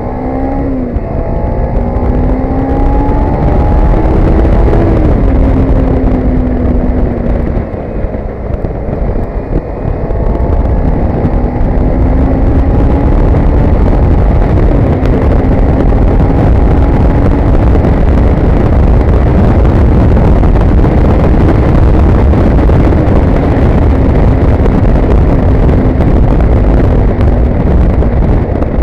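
Motorcycle engine pulling up through the gears, its pitch rising and dropping back at each shift about a second in, around 5 seconds and around 14 seconds, then holding steady at cruising speed. Heavy wind rush on the microphone runs under it.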